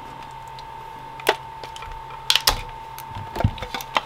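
A few sharp, scattered clicks and crackles of stiff plastic shrink wrap and padding being handled and pulled at on a lithium battery's cell pack, over a steady faint high-pitched tone.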